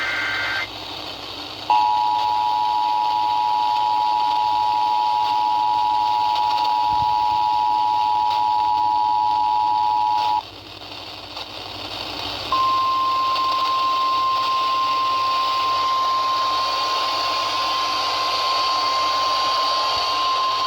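Emergency Alert System tones over a hiss of radio static. The tail of a SAME data-header burst comes first, then the two-tone EAS attention signal held steady for about nine seconds. After a short break of static, the single steady NOAA Weather Radio warning tone runs to the end.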